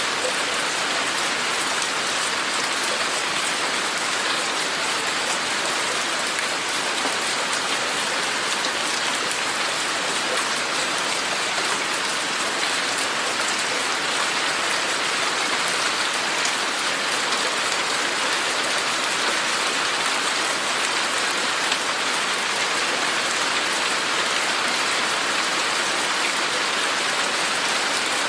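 Steady rain falling and pattering on surfaces, a dense even hiss with fine drop ticks.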